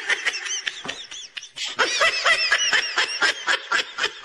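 Laugh-track sound effect: rapid, high-pitched cackling laughter in short repeated pulses, about five a second.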